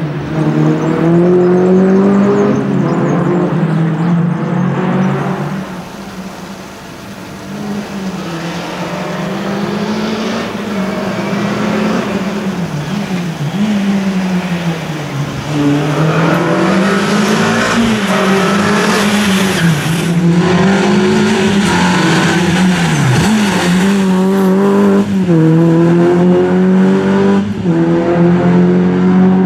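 Renault Clio's four-cylinder engine revving up and dropping back again and again as it is driven flat out through a slalom. It fades briefly about six seconds in and swells again as the car comes back toward the microphone.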